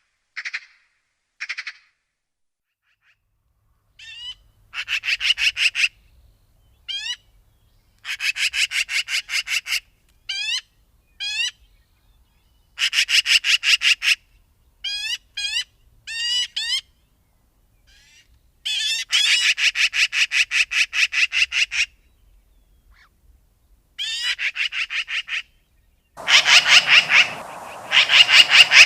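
Magpie chattering: bouts of rapid harsh rattling calls at about seven strokes a second, some short, some running for two to three seconds, with pauses between. Near the end a rushing background noise comes in under the calls.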